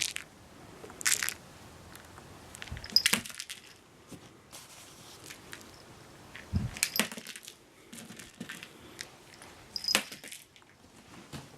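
A cat chasing and pouncing on a toy mouse: scattered thumps, scrapes and light clatters, with a handful of sharper knocks a few seconds apart. The sharpest come about three seconds in and again about ten seconds in.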